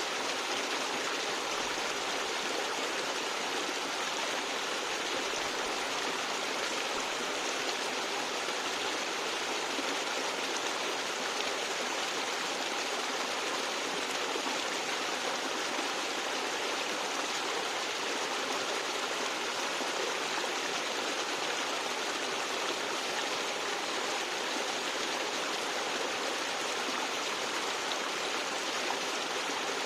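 Stream gurgling and splashing over rocks, a steady, unbroken rush of running water.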